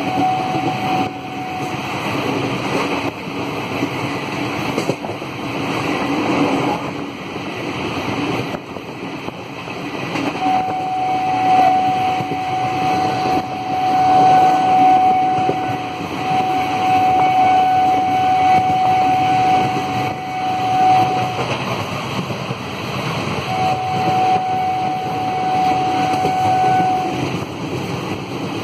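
Train running at speed, heard from on board: a steady rumble and rushing noise. A steady high tone rings over it for long stretches, one of about ten seconds starting about a third of the way in, then another shorter one.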